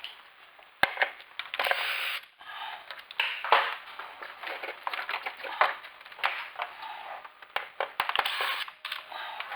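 Irregular clicks, knocks and scraping of hard parts being handled, with a sharp knock about a second in and several more near the end.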